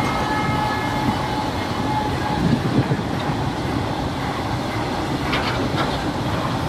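Freight train of empty BOXN open wagons rolling past, a steady rumble of wheels on rail with a few sharp clicks about five seconds in. The locomotive horn's note fades out in the first two seconds.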